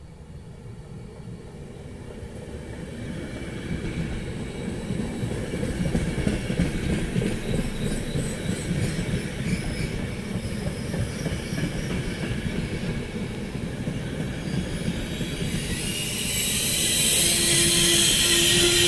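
Night sleeper train passing slowly, a UIC-Z driving trailer in front and an E403 electric locomotive pushing at the rear. The coaches' wheels rumble and clatter over the rail joints, growing steadily louder. A high squeal and hiss rise sharply near the end as the locomotive goes by.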